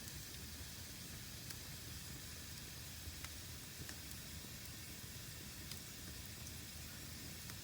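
Fire burning in a fireplace: a faint, steady hiss with a few faint crackling pops scattered through it.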